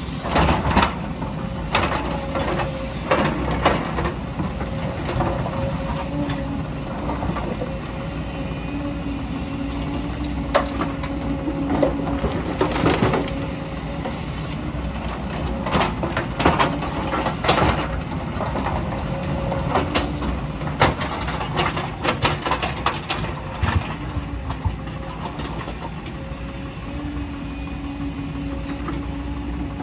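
JCB tracked excavator's diesel engine running steadily with a held hum, while rocks clatter and knock in irregular bunches as the bucket scoops them and drops them into a steel tractor trailer.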